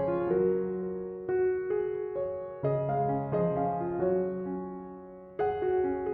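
Background music played on a piano-like keyboard, notes and chords struck about once a second; it fades a little before the end and a new chord sounds.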